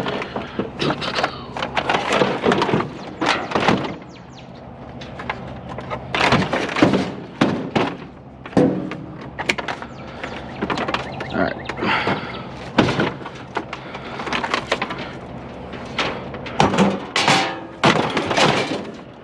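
Repeated irregular thunks, knocks and rattles of discarded household items, among them a vacuum cleaner, being picked up and loaded as scrap.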